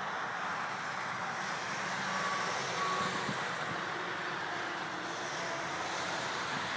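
Steady outdoor background noise, an even hiss with no clear pitch, with two short high beeps a little over two seconds in.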